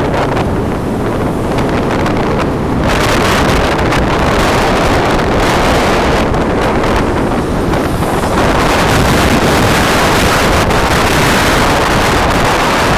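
Loud wind noise buffeting the microphone, growing stronger and hissier about three seconds in.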